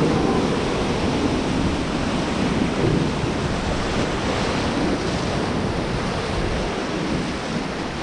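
Whitewater river rapids rushing and splashing around an inflatable raft, a steady, loud rush of water.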